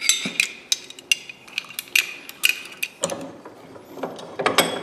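Metal locking pliers being handled: a string of irregular, sharp metallic clicks and clinks, some ringing briefly.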